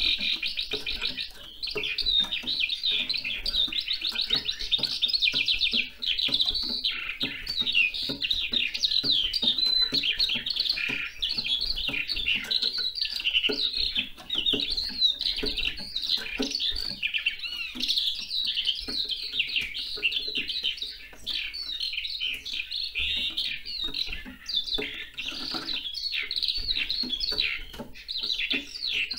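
Eurasian skylark singing its long, continuous song of rapid, high warbling trills, with only brief pauses about one and a half and six seconds in.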